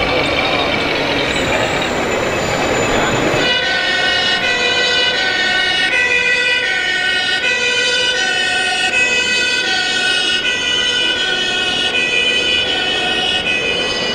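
A radio-controlled model fire engine's sound module plays a European two-tone siren, switching back and forth between a low and a high note. Before it, the noise of a busy exhibition hall runs for the first few seconds.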